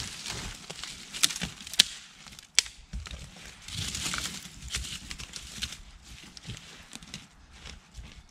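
Dry twigs snapping with a few sharp cracks, then rustling and scraping of forest-floor litter and soil as a small hole is dug with a stick.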